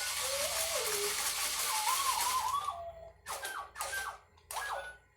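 Star Wars RC toy droid making electronic sound effects: warbling, sliding whistles over a hiss, then three short chirping bursts near the end.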